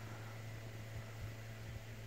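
Tabby cat purring steadily close by, a low continuous hum under a soft hiss.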